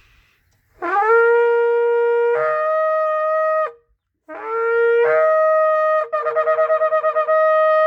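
Shofar blown in two long blasts, each starting on a lower note and stepping up to a higher one; the second blast breaks into a rapid warbling flutter for about a second in its middle before holding the high note again.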